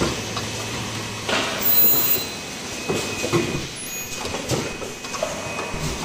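Automatic cup-mask production machine running, its pneumatic arms and stations clacking in a repeating cycle about once a second over a steady machine noise.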